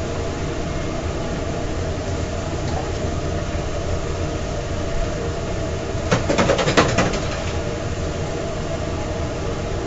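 Steady hum and rumble of food-trailer kitchen equipment, with a short burst of clattering about six seconds in.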